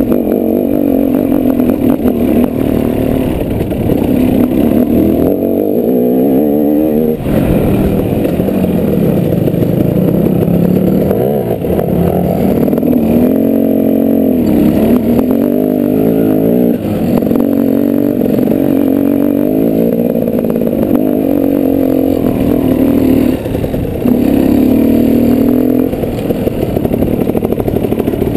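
Dirt bike engine running under load while being ridden, its pitch rising and falling again and again as the throttle is opened and closed.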